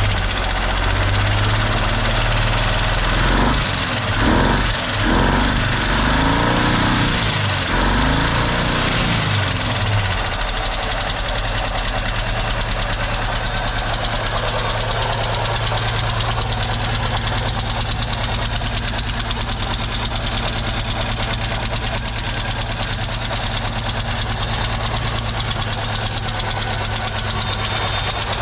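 1976 Jeep Cherokee engine, running on a GMC throttle-body injection unit, revved up and down several times and then settling to a steady idle. It runs a little rumbly, which the owner puts partly down to bad gas.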